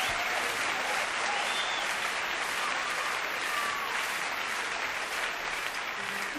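Audience applauding steadily and slowly fading, with music notes coming in near the end.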